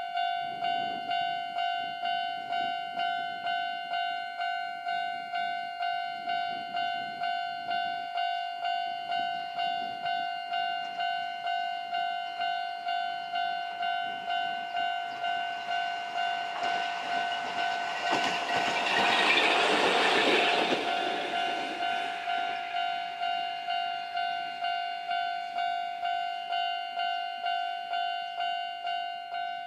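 Level-crossing alarm bell ringing in even, repeated dings, a little over one a second. Over it, a Chikuho Electric Railway 3000-series car with nose-suspended traction motors approaches and runs past, loudest about two-thirds of the way through, then fades away.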